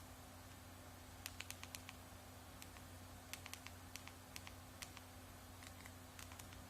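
Faint, irregular light clicks of keys being tapped on a mobile phone while a text message is typed, about a dozen, coming in small clusters, over a steady low hum.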